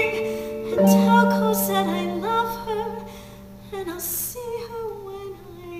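Slow, soft accompaniment music with long held notes, growing quieter about halfway through.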